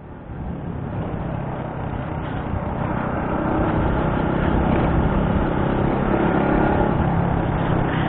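Small motorcycle riding along a city road, heard through an action camera: its engine humming steadily under wind and road noise. The sound fades in at the start and gets a little louder over the first few seconds.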